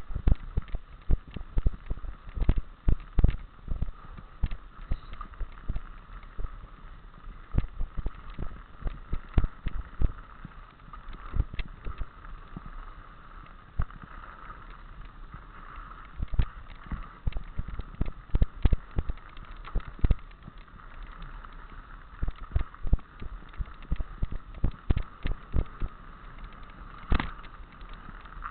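Mountain bike rattling and knocking on a handlebar-mounted camera as it bounces over a rough, snow-dusted woodland trail, with sharp irregular knocks over a steady hiss of tyres and wind.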